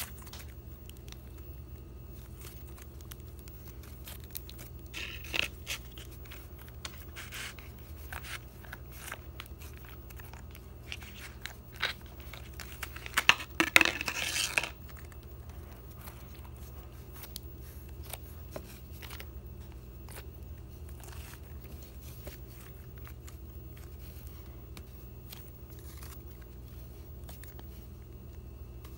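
Blue stretchy slime being kneaded and pulled apart by hand, giving sticky crackles, clicks and tearing sounds. The sounds come scattered, with a louder run of crackling about halfway through.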